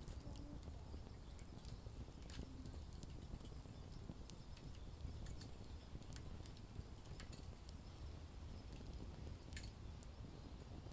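Wood campfire crackling: irregular sharp pops and snaps over a steady low rumble of the flames.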